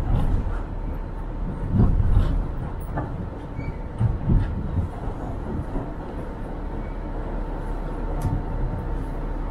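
New York City subway train running, heard from the ride: a steady low rumble of the car on the track with a faint steady tone, and a few heavier jolts about two and four seconds in.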